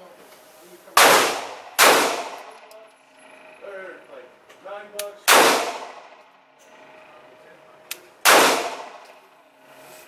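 Four 9mm pistol shots in an indoor range, each ringing off the walls briefly. Two come close together about a second in, a third about five seconds in, and a fourth about eight seconds in.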